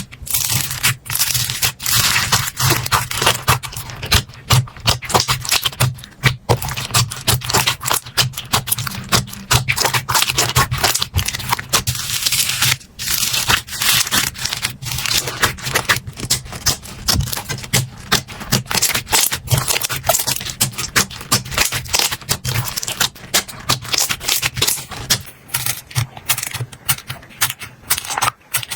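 Slime being squished, pressed and stretched by hand: a dense, irregular run of small clicks, pops and crackles with brief pauses.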